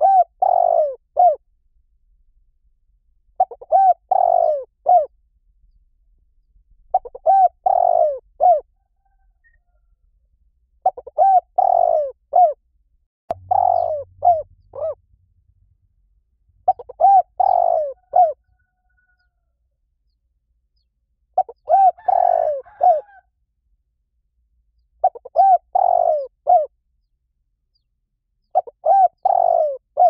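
Spotted dove cooing: a short phrase of several arched coos, repeated about every three to four seconds.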